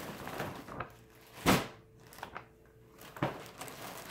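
Plastic packaging rustling and crinkling as a mailer bag and a plastic-wrapped garment are handled, with one short loud rustle about a second and a half in and a sharp knock on the table about three seconds in.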